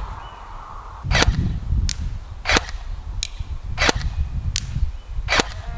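L1A1 SLR-style airsoft electric rifle (AEG) firing single shots: seven sharp cracks about two-thirds of a second apart, starting about a second in, some louder than others.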